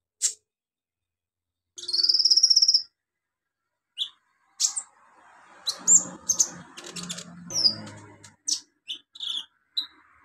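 Kolibri ninja, a sunbird, calling: a single sharp chip, then a loud rapid buzzy trill about two seconds in that lasts about a second, followed by a quick run of sharp chips and short twittering notes.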